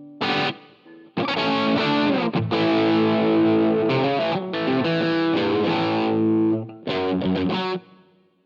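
Electric guitar played through an iSet Dumbler, a Dumble-style overdrive pedal, with light overdriven crunch. A short chord stab, then a few seconds of ringing chords, then a run of short choppy stabs that fades out near the end.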